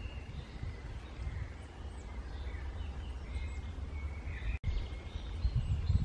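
Low, fluctuating outdoor rumble on the microphone, with faint short chirps of small birds in the background. The sound cuts out for an instant about three-quarters of the way through.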